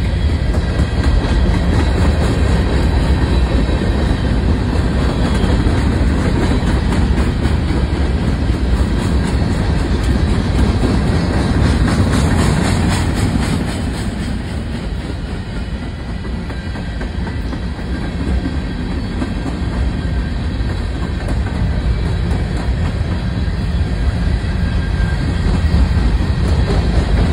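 Freight train of open-top hopper cars rolling past close by: a steady rumble and clatter of steel wheels on the rails, easing a little in loudness midway and building again near the end.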